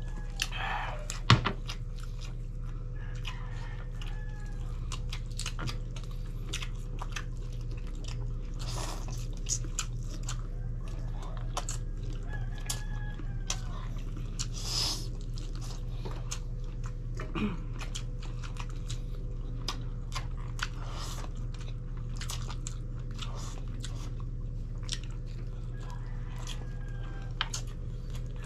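Chewing and biting of grilled chicken and pork barbecue eaten by hand, with many small wet clicks and smacks, over a steady low hum.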